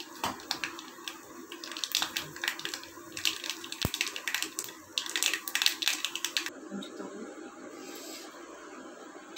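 Mustard seeds, dried red chilli and curry leaves crackling and spitting in hot oil, a tempering (tadka) being poured from the pan over peanut chutney. There is a low knock just before four seconds in. The crackling stops about six and a half seconds in, leaving a low steady hum.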